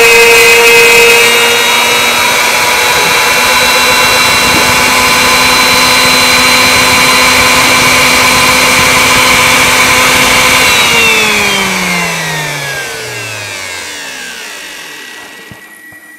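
Wood router spindle on a CNC machine running at full speed with a steady whine, then switched off about ten seconds in. Its pitch falls and it fades as the motor winds down to a stop.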